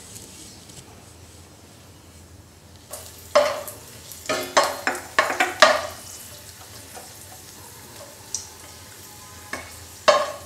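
Cashews frying in shallow oil in a nonstick pan with a faint sizzle, then a spatula stirring and scraping through them in a quick run of strokes from about three to six seconds in, and again near the end.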